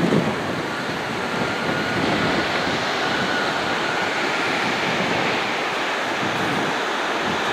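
Strong wind rushing steadily over the microphone, with a faint thin whine in the first few seconds.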